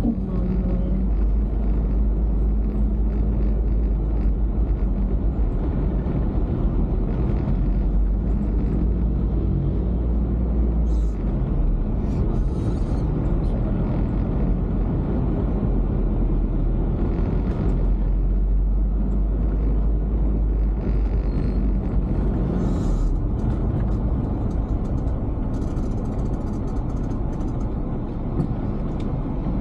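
Steady low rumble of a car driving on a city street: engine, tyre and wind noise.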